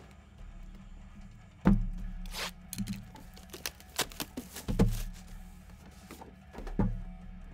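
A handful of dull thuds and knocks, a second or so apart, of sealed trading-card boxes being handled and set down on a table.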